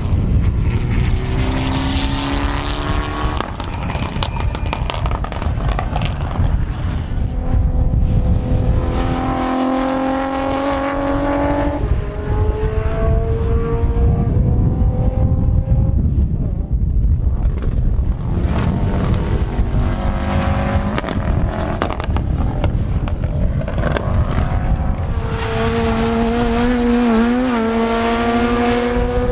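Several performance cars accelerate hard past one after another, each engine note climbing in pitch, with one clear upshift. Heavy wind buffeting on the microphone rumbles underneath throughout.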